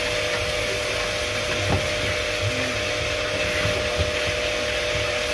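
Steady hiss of water spraying from a dog-wash hose nozzle onto a dog's wet coat, over the wash unit's steady machine hum.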